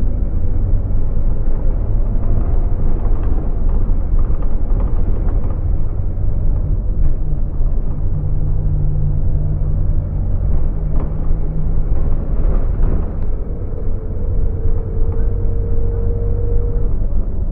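Scania OmniLink bus under way, heard from the rear seats inside the cabin: the rear-mounted diesel engine and drivetrain running with a heavy low rumble. A steady hum holds for a few seconds in the middle, and a higher whine rises slightly near the end.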